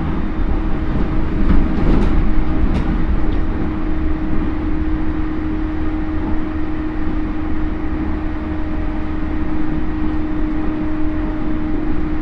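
Running noise inside a JR East E231 series motor car with a Hitachi IGBT inverter, cruising between stations: a steady rumble of wheels on rail, a steady motor whine, and a few sharp clicks about two seconds in.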